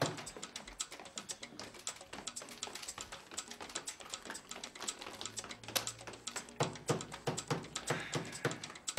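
Rapid, irregular clicking and tapping, like typing on a keyboard.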